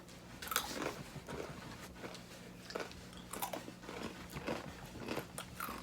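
Someone chewing crunchy flour-coated Japanese-style peanuts: a string of irregular crisp crunches.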